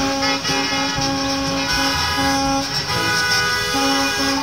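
Several school bus horns honking, held and repeated at different pitches that overlap and break off again and again, over the hiss of tyres on a wet road.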